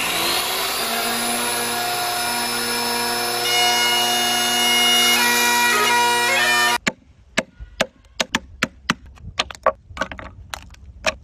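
Corded circular saw spinning up with a rising whine, then cutting shallow depth-set kerfs across a wooden 4x4 beam, its whine growing louder partway through. It stops suddenly about seven seconds in, followed by a quick series of sharp knocks of a wooden mallet driving a chisel to clean out the cut.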